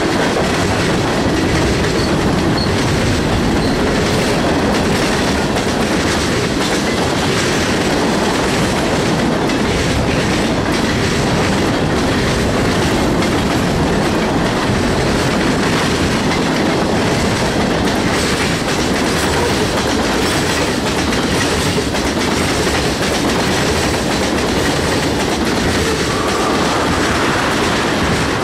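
Cars of a mixed manifest freight train (tank cars, covered hoppers, boxcars, autoracks) rolling past close by: a loud, steady rumble of steel wheels on rail with clickety-clack over the rail joints.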